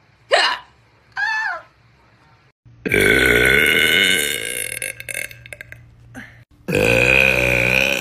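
A woman's two long, loud, deep belches, each about two seconds, the first about three seconds in and the second near the end. They follow two short vocal sounds in the first second and a half.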